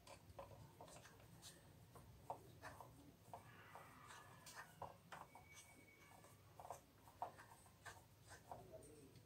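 Faint, irregular clicks and scraping of a screwdriver working on the plastic chassis of an Epson inkjet printer, with a longer scratchy stretch about four seconds in.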